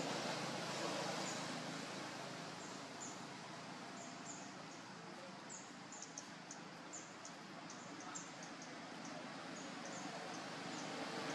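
Small birds chirping in short, high notes repeated irregularly over a steady outdoor background hiss.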